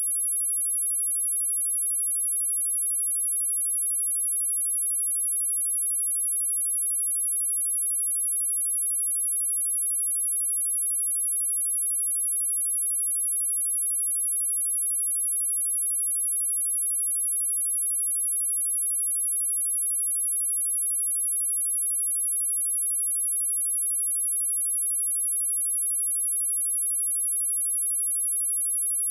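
A steady, very high-pitched pure tone: a 10794 Hz sine wave test tone held at an even level, used to test speakers and to vibrate water and dust out of them.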